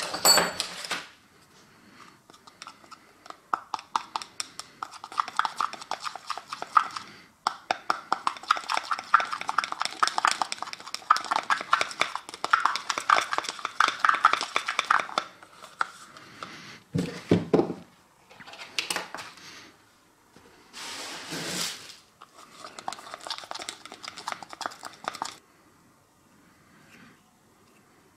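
A screwdriver stirring and scraping a thick mixture in a small plastic cup: a rapid run of scrapes and ticks lasting about ten seconds. It is followed by a few shorter bouts of handling noise and a low knock.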